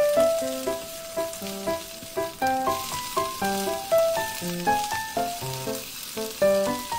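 Bok choy sizzling as it is stir-fried and turned with a spatula in a frying pan, under background music with a quick melody of short notes.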